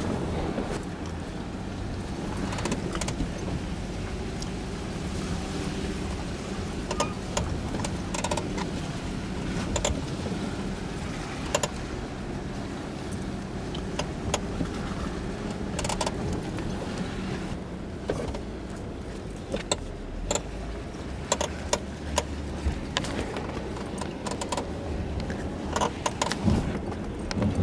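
Jeep engines running at low revs while crawling over a rocky trail, with scattered sharp clicks and crunches of stones under the tyres.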